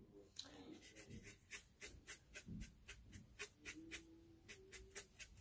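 Faint, quick taps and scrapes of a paintbrush working paint on a cardboard palette, a few a second.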